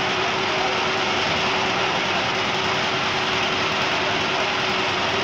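Engine of a site concrete mixer running steadily, with a constant hum over a dense, even mechanical noise.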